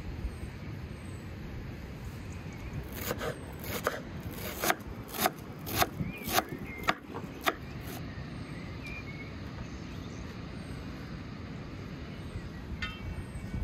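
Kitchen knife chopping fresh dill and parsley on a wooden cutting board: about eight sharp chops, a little under two a second, starting a few seconds in and stopping after the middle, over a steady low background rumble.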